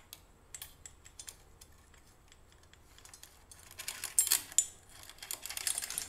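Bicycle chain links clicking and rattling as a new chain is threaded over the chainring and rear cogs. Faint light ticks at first, then a louder spell of rattling about four seconds in and again near the end.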